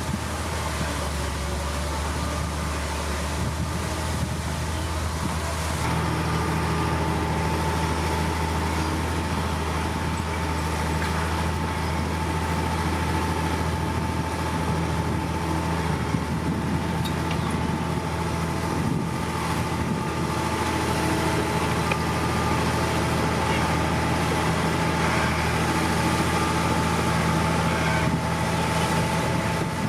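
Heavy diesel earthmoving machinery running steadily under load, a deep engine drone with a layered hum; about six seconds in a higher engine note joins and the sound grows a little louder.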